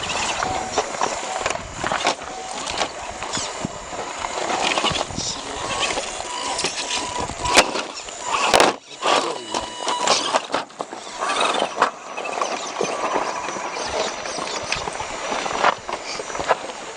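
Irregular crunching and clattering on rock and gravel, with two sharp clicks about halfway through and a faint electric motor whine at times.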